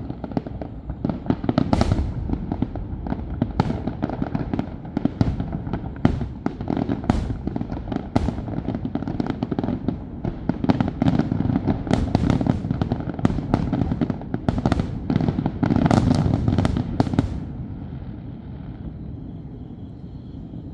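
Fireworks display: a dense barrage of sharp bangs and crackling bursts over a continuous low rumble, which stops about three-quarters of the way through, leaving a much quieter background.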